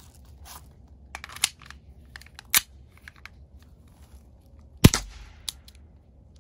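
Black 1911-style airsoft pistol being handled with a few light mechanical clicks, then one sharp shot just under five seconds in.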